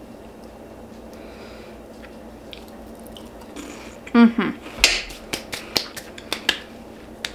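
A person chewing a mouthful of cheese ball: a short hummed "mm" about four seconds in, then a quick run of sharp lip-smacking clicks.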